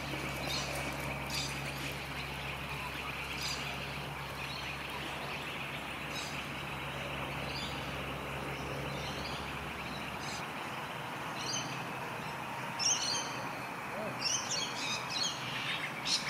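Birds chirping, with short high calls every second or two and more of them in the last few seconds, over a steady low background hum.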